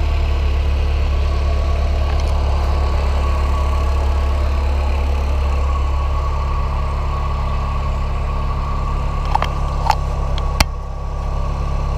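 Mk4 VW Golf engine idling steadily, with a few sharp clicks about nine to ten and a half seconds in.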